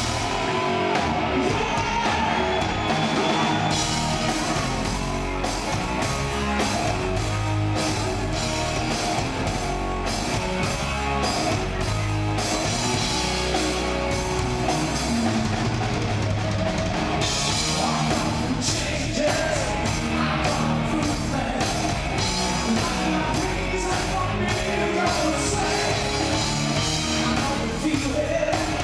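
Hard rock band playing live with drums, bass, electric guitar and keyboards, and a male lead singer.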